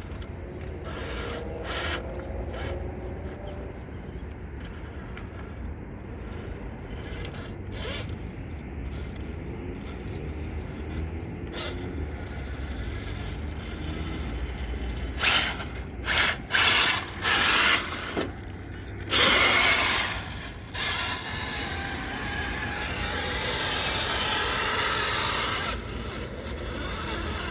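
Small electric RC truck driving over dirt, its motor giving a faint wavering whine over a steady low rumble. Past the middle comes a run of loud short scraping and rushing noises, then a longer steady hiss.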